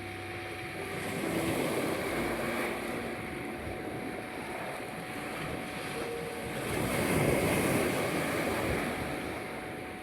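Sea waves washing onto the shore, swelling twice, with a steady high 741 Hz tone and faint soft music tones beneath.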